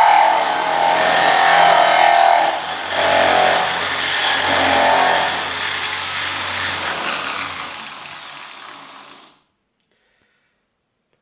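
Home-adapted bench drill running while cutting into wood, a loud grinding that eases briefly twice as the cut is worked. It cuts off suddenly about nine seconds in, leaving near silence.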